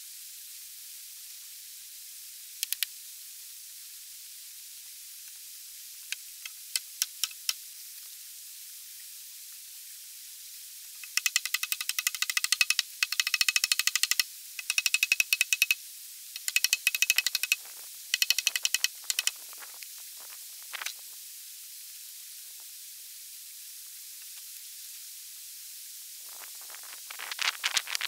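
Rapid runs of sharp axe strikes on a log, working the end of a cabin-wall log, in several runs about halfway through, with a few single knocks earlier. A steady hiss lies under them throughout.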